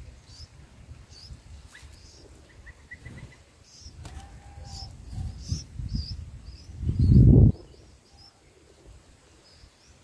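Bulbul nestlings giving thin, high begging cheeps about twice a second while an adult feeds them, with a quick run of about five notes about three seconds in. From about five seconds a low rustling builds, ending in a loud burst near seven seconds, the loudest sound.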